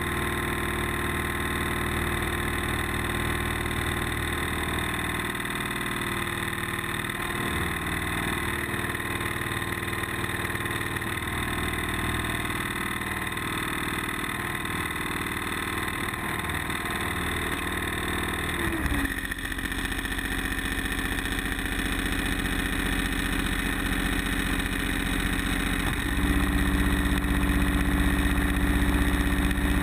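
An engine running steadily. About two-thirds of the way through its note shifts suddenly, and for the last few seconds a louder, deeper hum comes in.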